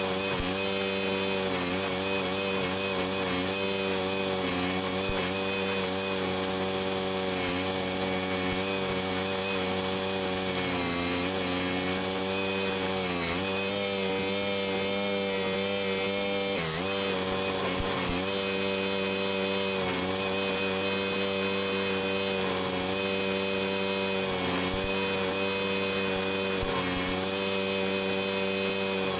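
Barreto track-driven stump grinder's engine running steadily, its pitch sagging briefly under load a few times.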